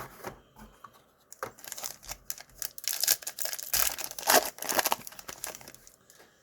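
A trading-card pack's foil wrapper is torn open and crinkled, in a run of crackly rustling that lasts about four seconds.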